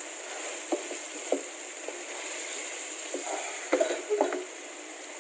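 Asam pedas spice paste with torch ginger flower and kesum leaves sizzling in a pot as it is stirred, a utensil knocking against the pot several times.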